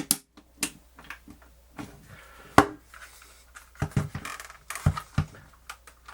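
Irregular sharp plastic clicks and knocks from a portable cassette player's housing and parts being handled and fitted together, with the loudest knock about two and a half seconds in and a quick run of clicks a little later.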